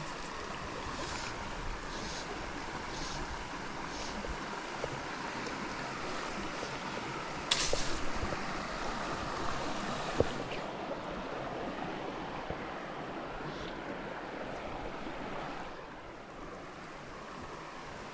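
River water running steadily through a fast, broken stretch. A brief, sharp, louder burst comes about seven and a half seconds in.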